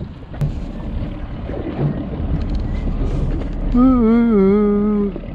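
Steady rumble of wind and water around a small fishing boat. About four seconds in, a person gives a drawn-out, wavering vocal sound lasting just over a second, its pitch sliding slightly lower before it stops.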